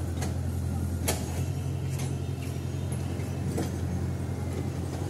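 Kobelco excavator's diesel engine running with a steady low drone, with a few sharp knocks over it, the loudest about a second in.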